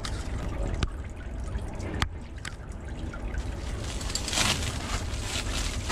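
Clear plastic stretch wrap around a parcel crinkling as a hand grips it, loudest about four seconds in, after two sharp clicks earlier.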